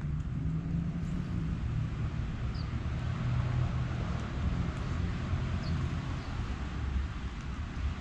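Steady low rumble of road traffic, with an engine hum that is strongest in the first few seconds. A few brief, high bird chirps sound over it.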